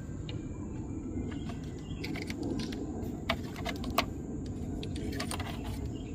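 A few sharp clicks and knocks from small parts being handled and pushed into place on the motorcycle during a light installation, over a steady low background rumble.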